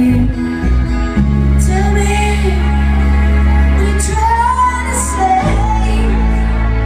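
Live band playing a song: acoustic guitar and electric bass, the bass holding long low notes that change about a second in and again near the end. A gliding melody line runs above them.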